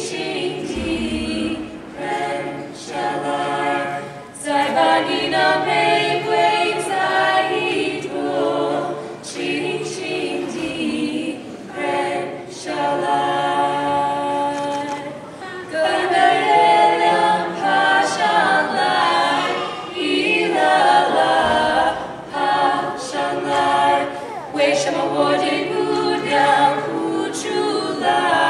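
A small group of voices singing a Chinese folk song together.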